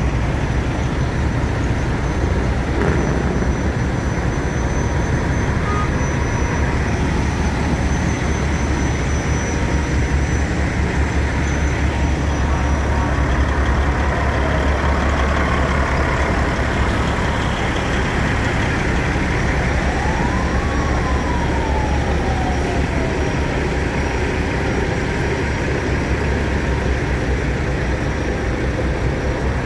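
Steady low rumble of idling diesel semi trucks, with a brief siren-like wail that rises and then falls about twenty seconds in.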